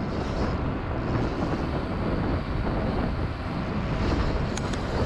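Mountain-bike riding noise picked up by an action camera: steady wind buffeting the microphone over the rumble of tyres on a rough trail, with one sharp click near the end.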